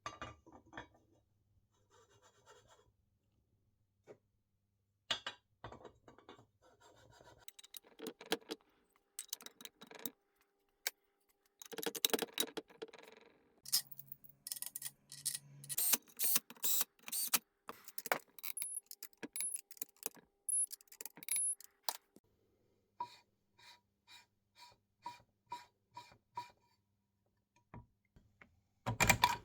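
Metal hand tools and engine parts clicking, clinking and scraping in a series of uneven knocks. Near the end comes a run of even ticks, about three a second.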